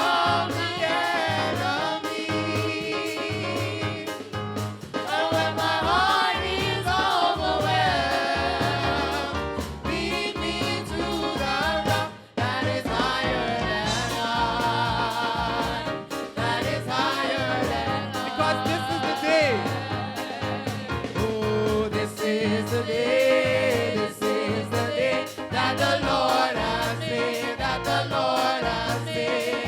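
A praise team singing a gospel worship song with instrumental accompaniment.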